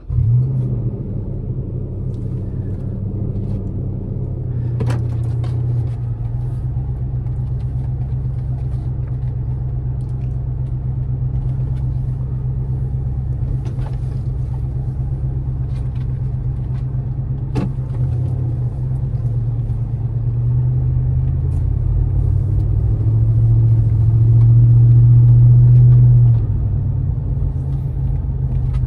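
Toyota 4.7L V8 with a Magnaflow Overland stainless cat-back exhaust, heard from inside the cabin: it fires up suddenly and settles into a steady low rumble. It grows louder for a few seconds near the end, then drops back, with a few faint clicks along the way.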